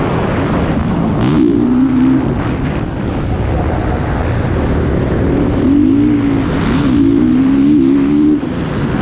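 Motocross bike engine, heard close up from on the bike at racing speed, its pitch rising and falling again and again with throttle and gear changes. The throttle shuts off sharply near the end.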